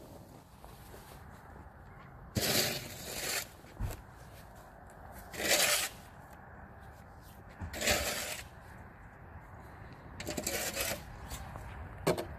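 Plastic snow shovel scraping across snow-covered pavement in several strokes a couple of seconds apart, each lasting about half a second to a second.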